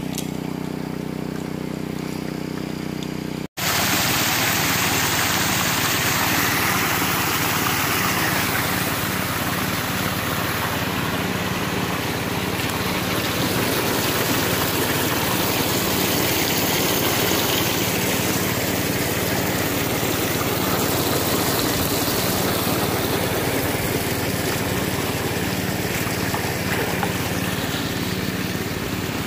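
Small gas engine of a 2-inch gold suction dredge running steadily, with water rushing over the dredge's sluice box. The sound drops out for an instant about three and a half seconds in, and the rushing water is louder after that.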